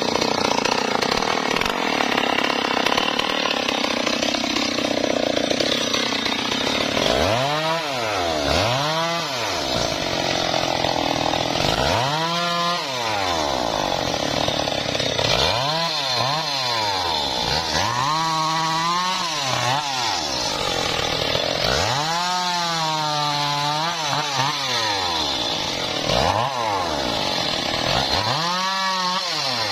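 Petrol two-stroke chainsaw running at high speed, then revved up and dropping back again and again, every few seconds, as it cuts through the dead branches of a felled mango tree.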